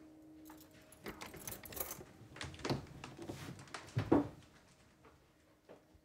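Rustling and knocking handling noises in a small room, with a heavy thump about four seconds in.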